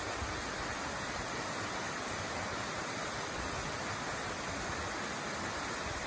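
A tall, narrow waterfall with a steady rush of falling water.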